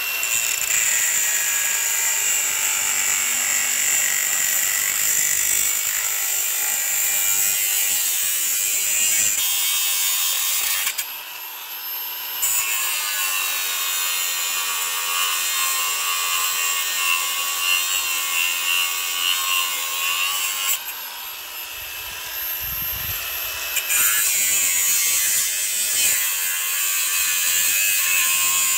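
Angle grinder with its disc cutting into a mounting lug on the cast housing of a Lexus RX 400h rear motor-generator drive unit: a loud, steady high-pitched whine with grinding noise. It eases off twice, about eleven seconds in and again about twenty-one seconds in, as the disc comes off the cut, then bites again.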